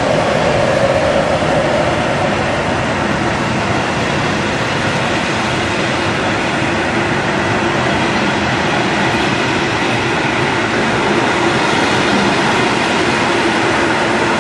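Passenger train hauled by an SJ Rc6 electric locomotive rolling past, a steady noise of wheels on rail from the coaches. A whine in the first couple of seconds fades away.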